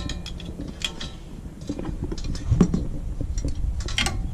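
Metal seat hardware clinking and knocking as it is handled: a handful of irregular sharp clinks, with the loudest knock about two and a half seconds in.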